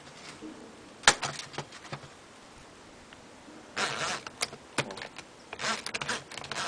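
Metal clicks and rattles of an 8 mm hex key jammed in a cordless drill's chuck jaws as the drill and key are handled, with one sharp click about a second in and short scraping rattles later.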